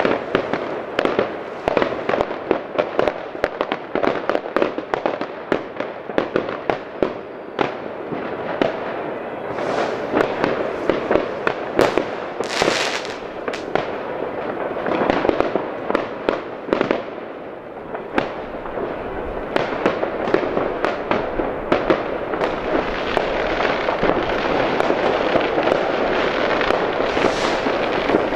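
Rockets and firecrackers set off all across a town, heard from a distance: a dense, unbroken run of bangs and pops, near and far, over a steady background crackle.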